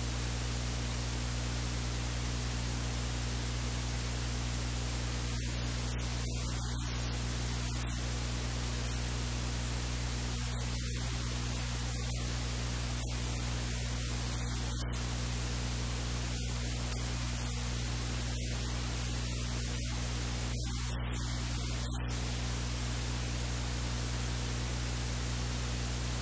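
Steady hiss of recording noise with a low electrical hum underneath, unchanging throughout; nothing else stands out.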